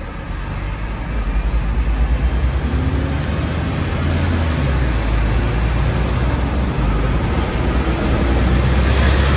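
Hong Kong double-decker tram running along its tracks, heard from on board: a steady, heavy low rumble that grows louder about a second in.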